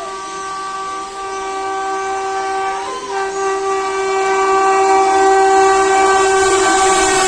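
WAP-7 electric locomotive's air horn sounding one long blast, with a brief break about three seconds in, growing louder as the train approaches through the station without stopping.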